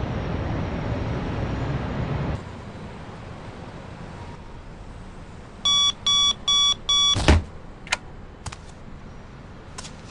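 A steady outdoor rumble of wind and distant traffic that drops away after about two seconds. Then a digital alarm clock beeps in four quick pulses and is cut off by a thud as it is slapped off, followed by a few faint clicks.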